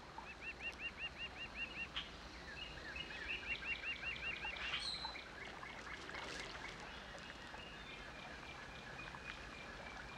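Birdsong: a bird repeats a run of quick, arched chirp notes, about six a second, twice in the first half, then fainter high calls continue.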